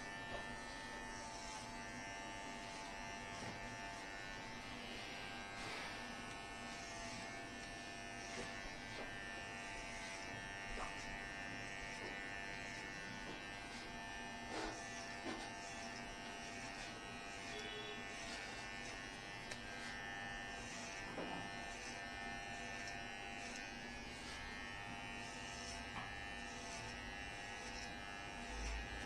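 Electric hair clipper running steadily as it cuts hair, a constant buzzing hum with a few faint ticks.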